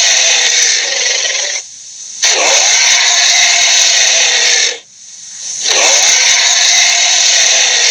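Creature sound effect for the Lochnessgator: long, loud, raspy hisses, one after another with short breaks between them.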